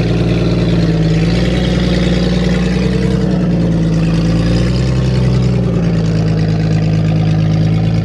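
Off-road vehicle's engine running steadily close by, its pitch rising a little about a second in and dropping back near six seconds.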